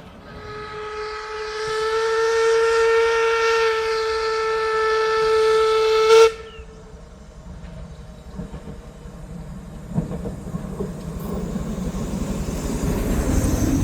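Steam locomotive whistle blown in one long, steady blast of about six seconds, with a hiss of steam around it, cutting off sharply. A low rumble then builds near the end.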